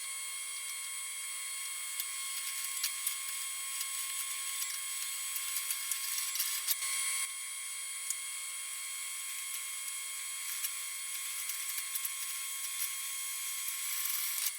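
Drill press running steadily while its bit cuts a hole through steel bar stock: a steady motor whine with scratchy, clicking cutting noise that eases a little about seven seconds in.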